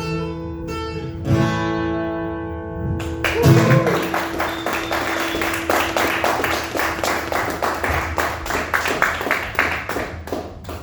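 Acoustic guitar's final chord ringing out, then about three seconds in the audience breaks into applause, with a whoop near the start of it.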